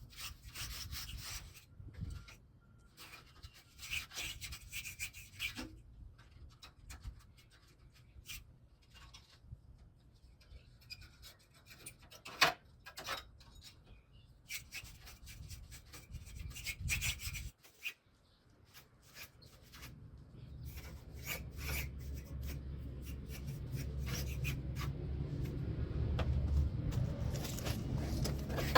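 A small brush scrubbing dust out of air-conditioner coil fins: irregular scratchy, rasping strokes. A low hum starts about two-thirds of the way through and grows louder.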